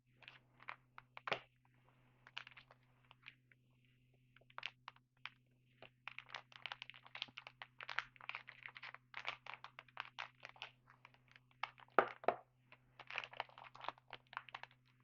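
Trading cards being handled and flipped through: a run of quick papery clicks and rustles, sparse at first and then dense through the second half, over a steady low hum.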